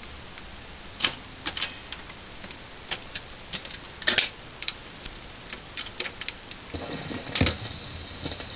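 Westinghouse console's automatic record changer cycling a 45 rpm single: an uneven run of mechanical clicks and clunks as the record drops and the tonearm swings over and sets down. Near the end a faint hiss of record surface noise comes in as the needle rides the lead-in groove.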